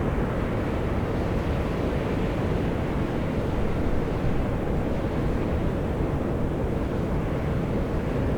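Steam and volcanic gas jetting from the fumaroles of Atosanupuri (Mt. Io), a volcano: a steady, unbroken hissing rush with a deep rumble.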